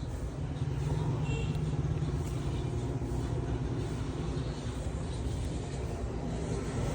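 Low, steady rumble of a motor vehicle's engine, swelling slightly about a second in.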